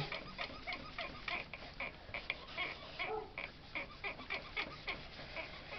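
Ink being blended through a paper-craft stencil onto card: a quick, uneven series of short scratchy taps and rubs, several a second, as the tool works the light green ink all over the stencil.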